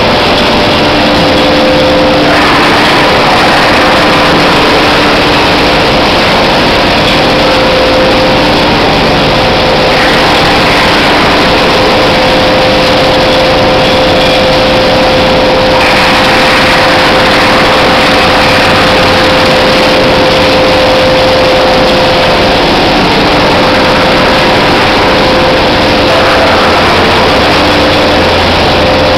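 Wood-processing machinery running: a drum wood chipper, conveyor and hammer mill making a loud, steady industrial din with a steady hum through it.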